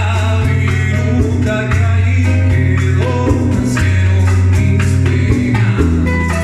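Latin band music with a singing voice over a stepping bass line and a steady percussion beat.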